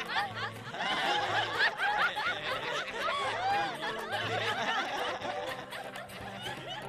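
A group of men and women laughing together, many overlapping laughs and giggles, easing off near the end.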